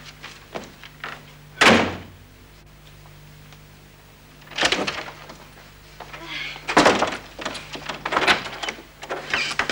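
A door banging shut about two seconds in, then another bang, and a run of shorter knocks and thuds in the second half.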